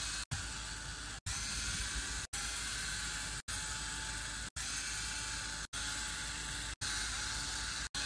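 Steady background hiss, cut by brief silent drop-outs about once a second.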